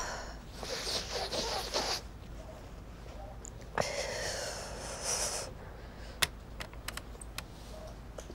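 A person with a runny nose makes two long, forceful nasal blasts, each lasting over a second, about two seconds apart; the second starts suddenly. Several sharp clicks follow near the end.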